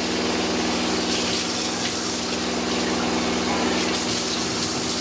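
Kitchen tap running steadily into the sink as something is rinsed under it, over a steady low machine hum.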